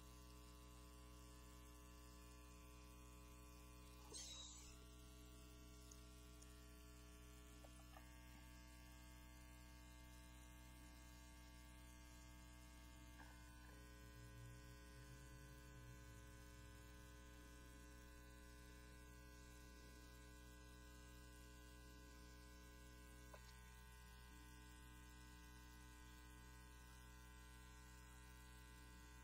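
Near silence with a steady low electrical mains hum, and one faint brief rustle about four seconds in.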